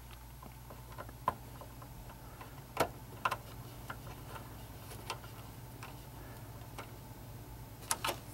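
Irregular small clicks and taps as a feeder wire is worked into the rail terminal block of a Digitrax command station, with a close pair of clicks near the end, over a faint steady low hum.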